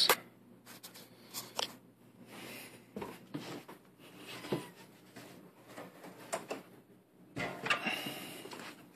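Faint scattered clicks, taps and rustling of handling, with a longer stretch of rustling about seven and a half seconds in.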